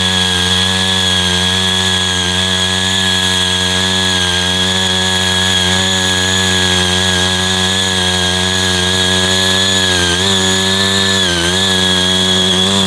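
Small engine of a CY80 foldable mini power tiller running steadily at working speed, dipping briefly in pitch twice near the end as it takes load.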